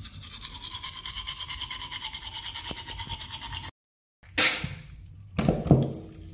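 Manual toothbrush scrubbing teeth in quick, even strokes, stopping suddenly a little over halfway through. After a short gap come two loud, short rushing noises.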